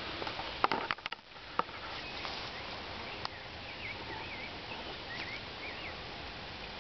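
A quick run of sharp knocks and rustles from the camera being handled while moving low through undergrowth, about a second in, with one more click a little later. Over a steady hiss, a small bird sings short whistled phrases that rise and fall.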